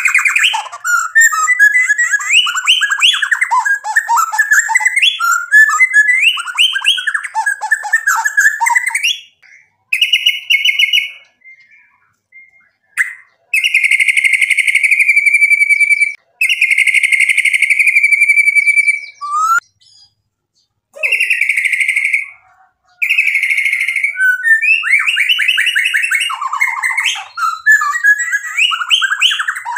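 Male white-rumped shama singing: fast runs of varied whistled phrases, with a stretch in the middle of several long buzzy notes of one to three seconds each, broken by short pauses.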